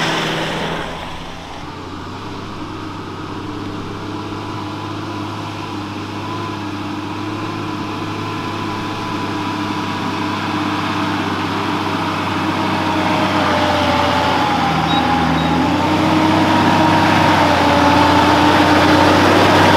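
A four-wheel drive's engine fades in the first two seconds as it pulls away. Then a Nissan GU Patrol's engine climbs a dirt hill toward the listener at a low, steady note that grows steadily louder.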